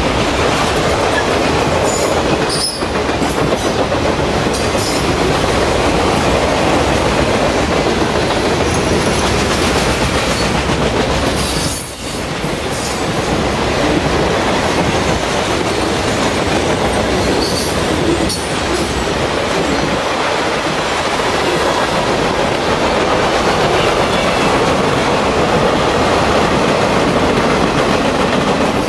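Freight train cars rolling past at speed: a loud, steady rumble and clatter of steel wheels on the rails, with a few brief dips in the noise.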